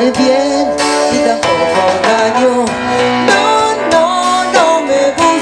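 Live band music, with electric guitar to the fore over drums and keyboard, in an instrumental passage of a pop-rock song.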